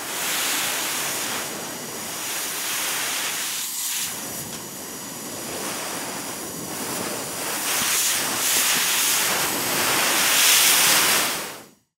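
Compressed air from an air compressor hissing out in a steady rush that swells and dips, loudest near the end before it fades out.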